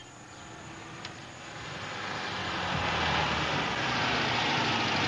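A car approaching and driving up close by. Its engine and road noise grow louder over about the first three seconds, then hold steady.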